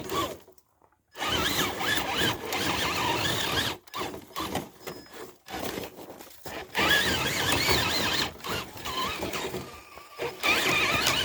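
Electric motor and gear drivetrain of an RC rock crawler whining as it drives through snow. It runs in spurts, stopping and starting several times as the throttle comes on and off.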